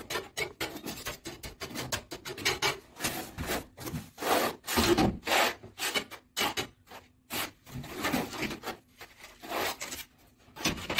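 Steel trowels scraping grey cement mortar across the backs of ceramic wall tiles: a run of quick, uneven scraping strokes, several a second.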